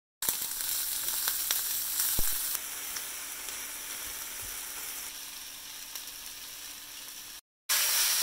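Leftover spaghetti, chicken and vegetables sizzling as they fry in a pan, with a few sharp clicks in the first couple of seconds. The sizzle slowly grows quieter, cuts out briefly near the end and comes back louder.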